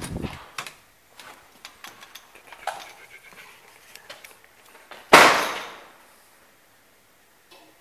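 An interior door opening with a low thump, then scattered small clicks and knocks, and about five seconds in a sudden loud rushing burst that fades away over a second.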